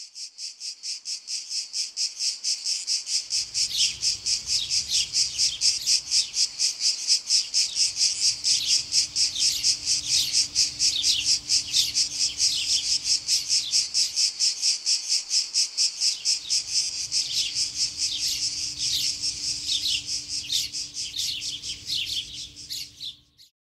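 Insects chirping in a steady fast pulse, about five pulses a second, with birds chirping over it and a faint low hum from a few seconds in. It fades in at the start and fades out near the end.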